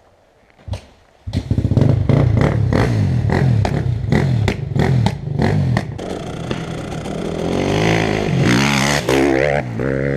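KTM dirt bike engine starting about a second in and accelerating hard, its revs climbing and dropping again and again as it works through the gears, with a hiss of wind on the microphone near the end.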